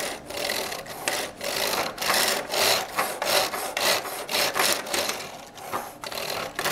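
LEGO Corporate Alliance Tank Droid's plastic tread wheel rolling back and forth across a wooden tabletop under a pushing hand. It makes a rasping, rattling rub in quick repeated surges, about three a second.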